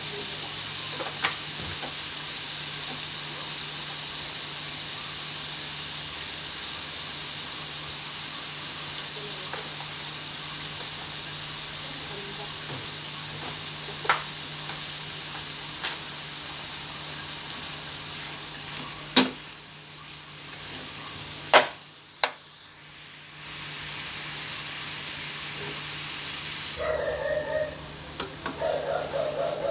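Strips of pork sizzling in oil in a nonstick frying pan, a steady hiss broken by a few sharp pops and clicks, dipping for a few seconds past the middle. Near the end a metal spatula stirs the meat, scraping and clattering against the pan.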